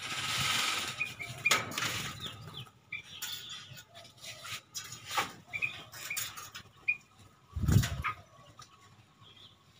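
Small birds in an aviary: a rush of wing flapping at the start, several short high chirps, a few sharp clicks, and a loud dull thump near the end.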